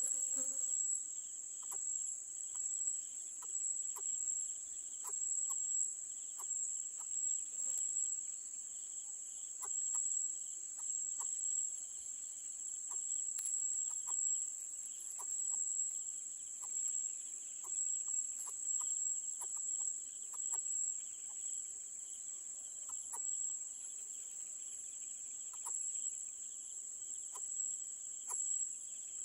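Steady high-pitched drone of an insect chorus, like crickets, with short faint chirps or ticks repeating roughly once a second.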